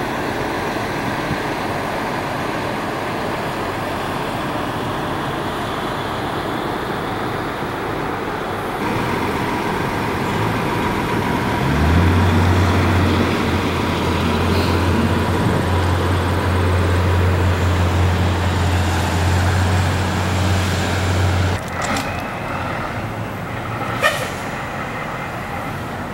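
Steady outdoor rumble of motor traffic. About twelve seconds in, a low steady drone joins it and cuts off sharply about nine seconds later. A short knock sounds near the end.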